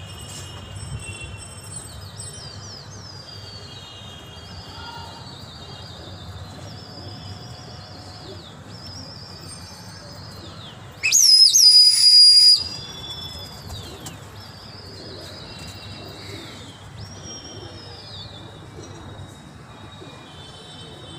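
A run of high, thin, sliding bird calls repeating about once a second. About eleven seconds in, a loud, shrill whistle is held for about a second and a half.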